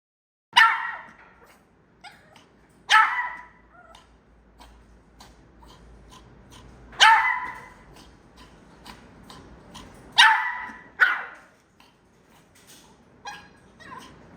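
A dog giving harsh, honking coughs of the kind seen with tracheal collapse: about six loud, sudden bursts a few seconds apart, with fainter ones between.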